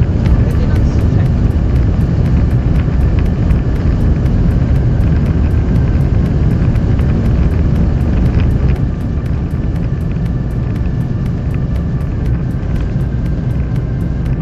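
Boeing 737 cockpit noise during takeoff: a loud, steady rumble of the engines and the runway. It eases a step about nine seconds in, as the rumble lessens.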